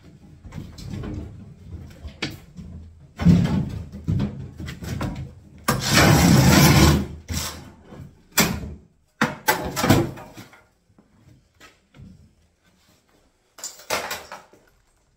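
Old wooden kitchen units being ripped out and broken up: irregular knocks and bangs, with a loud rough scraping crash lasting over a second about six seconds in and a sharp bang near the end.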